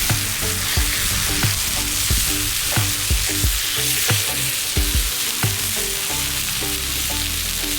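Food sizzling loudly in a hot pan, with background music and a steady beat underneath.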